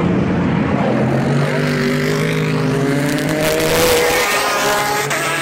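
Sports racing car engines running at speed on the circuit. One car passes close, its engine note climbing as it accelerates and loudest about four seconds in, with other cars' engines running behind it.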